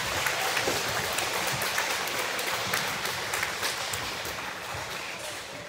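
A large crowd in the bleachers of a school gymnasium applauding. Many hands clap at once, the clapping echoes in the hall, and it dies away near the end.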